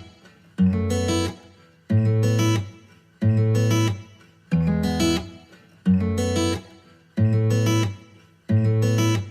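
A strummed acoustic guitar chord played again and again in a strict loop, about once every 1.3 seconds. Each strum rings for well under a second before dying away.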